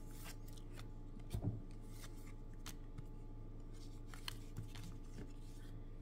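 Baseball trading cards handled by hand: faint scattered clicks and slides of card stock as cards are flipped and laid down, with one soft thump about a second and a half in.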